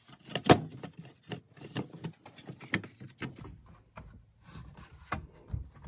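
Irregular clicks and knocks of the circular saw's plastic housing parts being handled and fitted together during reassembly, the sharpest about half a second in.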